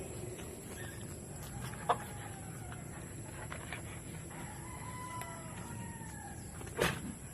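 A rooster crowing once, a long call rising then falling, a little over four seconds in. Two sharp knocks, one about two seconds in and a louder one near the end.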